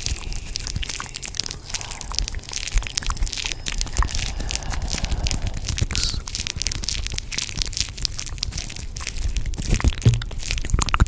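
Dense, continuous crackling and crunching: many small clicks and crackles layered over one another, with no pause.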